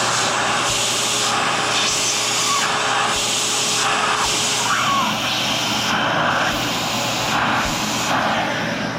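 Dremel rotary tool running at speed, its cutting wheel grinding through the metal screw tab in repeated back-and-forth strokes, the grinding hiss rising and falling with each pass.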